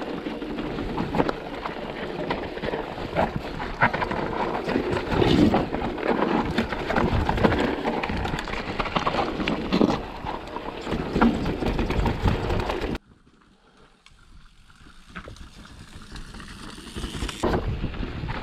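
Electric mountain bike riding fast over a rough trail: tyres crunching and the bike rattling with many short knocks, with wind buffeting the microphone. About thirteen seconds in the noise cuts off abruptly to near silence, then builds back up over the last few seconds.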